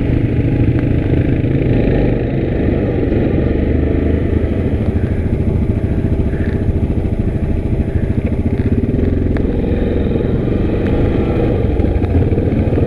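A 2019 Yamaha Grizzly 700 ATV's single-cylinder engine running steadily as the ATV is ridden along a rough trail.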